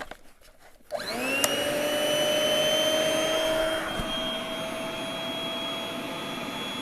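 Electric air mattress pump switched on: a click, then about a second in its motor spins up quickly and runs with a steady whine and rush of air as it inflates the mattress. About four seconds in there is a small knock and the sound eases slightly.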